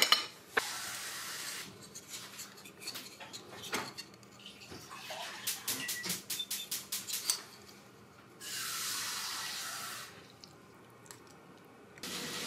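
Metal fork and spoon clicking and scraping against a ceramic pasta plate as spaghetti is twirled, with a quick run of ticks a little past the middle. Between the clinks come stretches of soft, wet hiss from the pasta being eaten.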